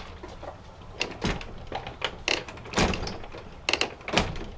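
A door being handled: a run of clicks and knocks, with one heavier low thump near the middle.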